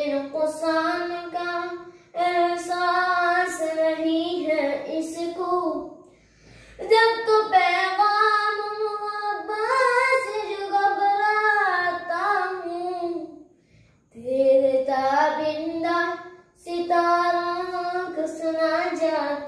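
A boy singing an Urdu nazm (poem) unaccompanied, in long melodic phrases with held, ornamented notes and short pauses for breath between them.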